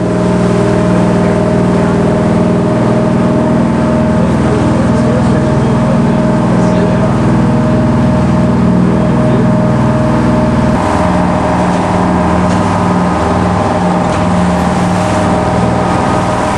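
Fishing boat's engine heard on board while under way: a loud, steady drone whose pitch shifts about eleven seconds in.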